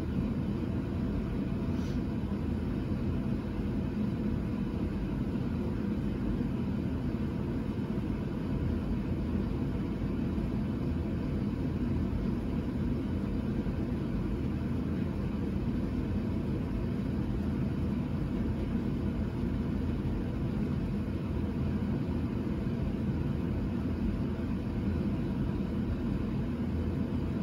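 Steady low rumbling background noise, unchanging throughout, with no distinct events.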